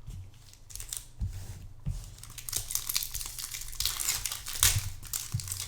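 Foil Pokémon booster pack wrapper being torn open and crinkled, a dense crackling that grows and is loudest near the end.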